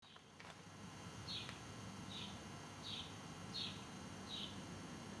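A bird repeating a short, high, slightly falling call note about once every three-quarters of a second, over a faint low rumble.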